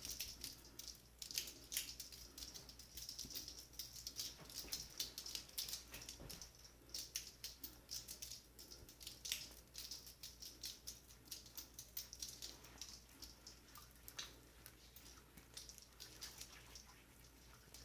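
Close-miked crackling and light clicking from objects being handled, in quick irregular clusters, thinning out and fading near the end.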